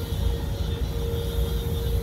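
Federal Signal STL-10 warning siren on test, a single steady tone swelling and fading. Underneath runs the loud, steady rumble and hiss of a pressure washer.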